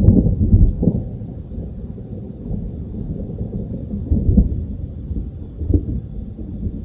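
Thunder rumbling, loudest in the first second with a few sharp peaks, then a lower continuing rumble that swells twice later on.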